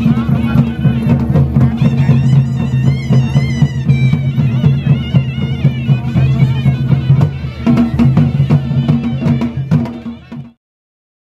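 Live Pahari folk band playing nati dance music: a high, ornamented reed-pipe melody over a steady drone and beating drums. It cuts off abruptly near the end.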